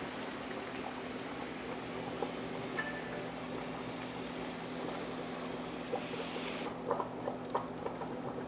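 Food sizzling in a hot skillet, a steady crackling fry. About seven seconds in, the sizzle thins out and a few light clicks of a utensil against the pan follow.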